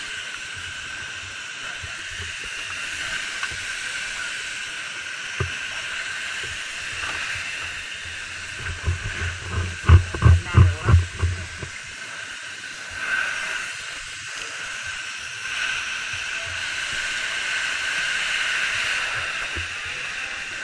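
Steady hiss of a fire hose spraying water into a smoke-filled burning house, with a quick run of close thuds and bumps about nine to eleven seconds in.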